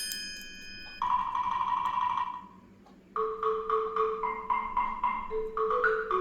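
Background music: a chime rings at the start, then a light tune of short mallet-percussion notes, like a marimba or xylophone, with a brief pause near the middle.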